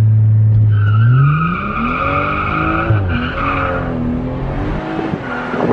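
Stage 2 tuned BMW 340i's turbocharged 3.0-litre inline-six held at steady launch-control revs, then launching. The engine rises in pitch while the tyres squeal in wheelspin. The pitch dips once about three seconds in, then keeps climbing as the squeal stops and the car pulls away.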